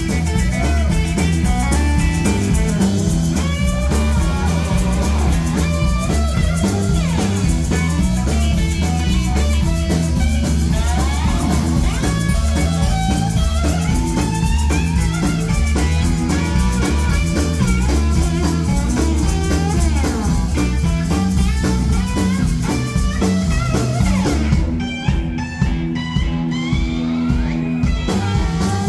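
Live rockabilly band playing an instrumental break: an electric guitar solo with bent notes over bass and drum kit. For the last few seconds the drums drop out before the full band comes back in.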